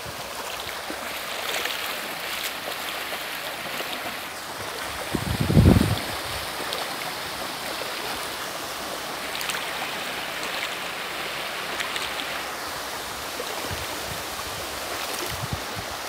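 Shallow river rushing over stones, with splashing from legs wading through the current. A short loud rumble of wind on the microphone about five and a half seconds in.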